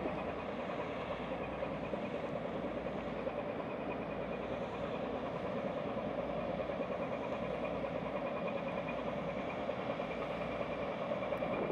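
Docked car ferry's diesel engines running steadily, a continuous drone with a low hum, as the ship waits to depart.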